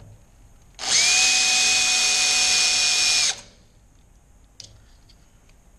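Power drill running in one steady whine of about two and a half seconds, spinning up quickly and stopping cleanly, as the drill bit marks the second mounting hole for the actuator. A short click follows about a second later.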